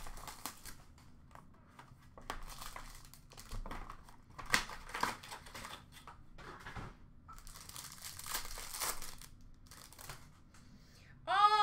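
Plastic wrapping and packaging of a trading-card box crinkling and tearing as it is opened and handled, in irregular rustles with a denser burst about two-thirds of the way in.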